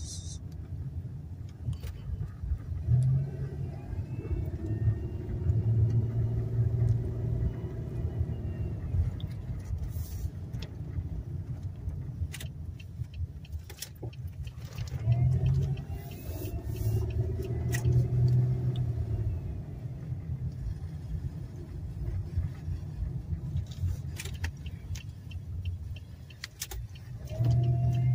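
Car engine and road rumble heard from inside the moving car's cabin. The engine note swells and rises as the car speeds up, about three seconds in, again around fifteen seconds, and near the end. Occasional short knocks sound over the rumble.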